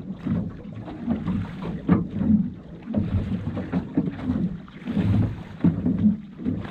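Aluminium dinghy being rowed across calm water: oar strokes knocking and splashing about once a second, with wind on the microphone.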